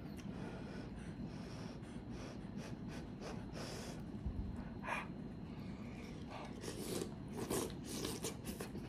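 Faint mouth sounds of eating a green-lipped mussel: sucking it off the half shell and chewing, with scattered short wet clicks, more of them near the end.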